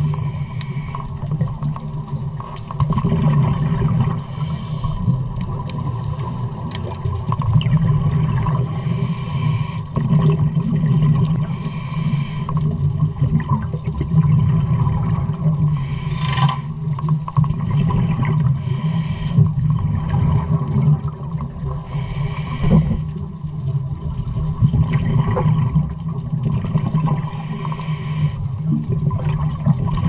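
Scuba diver breathing through a regulator, recorded underwater: a burst of exhaled bubbles hisses out every few seconds, about eight times, over a steady low rumble.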